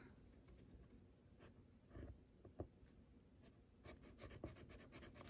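Faint scratching of a coloured pencil on paper through a stencil, in short irregular strokes that come more often in the second half.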